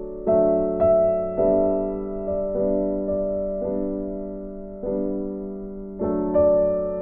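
Background piano music: slow, gentle notes over held chords, each note struck and left to fade.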